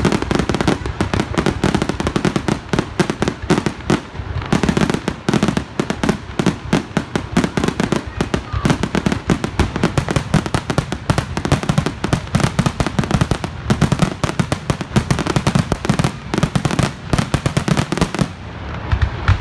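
Aerial fireworks going off in a rapid, nearly continuous barrage of bangs and crackles, thinning out near the end.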